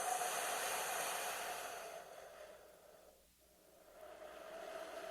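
Creepy ghostly breath sound effect: a long, airy breath with a hollow tone running through it. It fades away a little past halfway, and the next breath swells in near the end.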